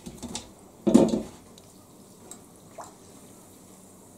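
Corn dogs frying in a shallow pan of hot oil, a faint steady sizzle, with a few light clicks and one louder knock about a second in as a metal fork works them out of the oil.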